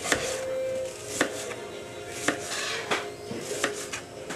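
Kitchen knife chopping an onion on a plastic cutting board: sharp knocks of the blade striking the board, unevenly spaced at about one a second.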